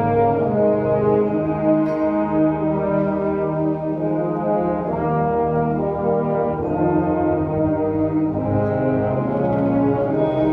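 A brass-heavy marching band playing slow, held chords, with trombones and horns in a chorale-like passage.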